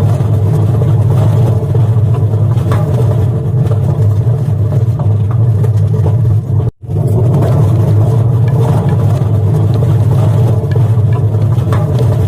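Washing machine running its spin cycle with a loud, steady low rumble and grinding, broken by a brief dropout about seven seconds in.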